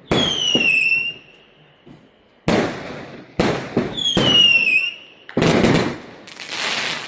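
Whistling bottle rockets going off: two shrill whistles about four seconds apart, each falling slightly in pitch over about a second, among several sharp bangs and pops.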